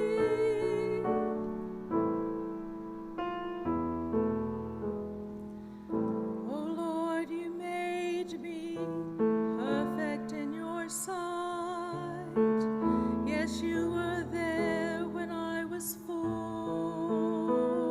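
A slow sacred song on piano, with a piano passage first. About six seconds in, a singing voice with strong vibrato joins on long held notes.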